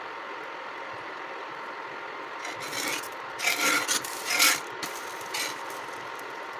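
A spatula scraping across a cast iron dosa tawa in four short rasping strokes, starting about two and a half seconds in, as the dosa is loosened and turned. Under it runs the steady hum of an induction cooktop.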